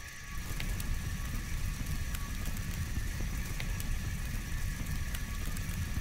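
Fire sound effect: a steady low rumble of flames with scattered sharp crackles.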